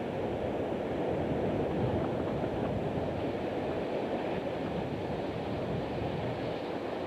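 Steady rushing of wind on the camcorder microphone during a snowstorm, starting abruptly.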